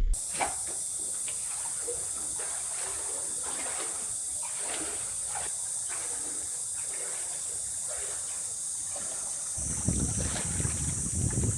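Outdoor ambience: a steady high hiss with scattered light ticks and faint trickling. Wind starts buffeting the microphone about ten seconds in.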